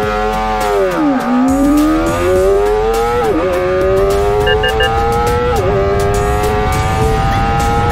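Sport motorcycle engine under hard acceleration, its pitch climbing steadily through the gears with quick upshifts, where the pitch drops briefly, about one, three and five and a half seconds in.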